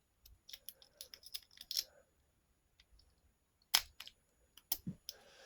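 Scattered light metallic clicks and ticks of lock-picking rakes and a lock being handled, with one sharper click near four seconds in and a few more just before the end.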